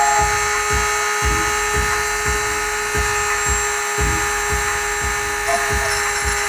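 Handheld electric rotary tool running at steady high speed with a high whine, its grinding bit held against the edge of a hatchet head to sharpen it.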